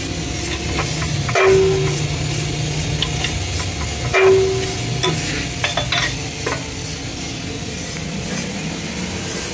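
Metal clanks, two sharp ones about three seconds apart, each with a short ring, then a few lighter clicks. They come from a hydraulic shop press with a bottle jack working on an air-cooled motorcycle cylinder barrel, over a steady low workshop hum.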